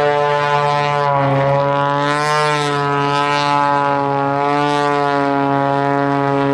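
Propeller-driven aerobatic aircraft making a low pass, a steady engine drone whose pitch rises and then falls about two seconds in as an aircraft goes by.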